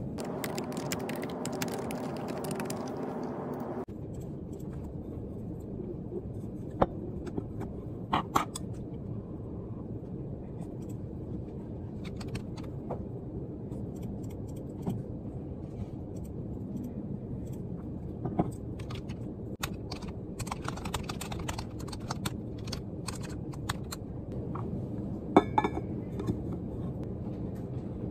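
Steady low office hum with occasional light clicks and knocks of objects handled on a desk, and a flurry of quick clicks about twenty seconds in.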